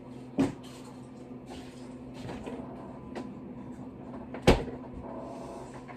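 Kitchen handling noises: two sharp knocks about four seconds apart, the second one louder, with smaller clicks and rustling between them, typical of a cupboard door or pans being handled.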